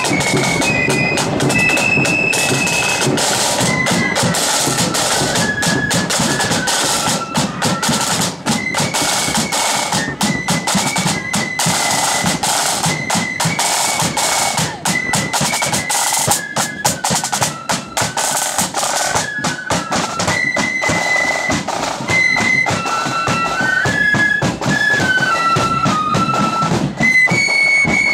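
Blood-and-thunder marching flute band playing: a high flute melody over steady, dense drumming with snare rolls and bass drum.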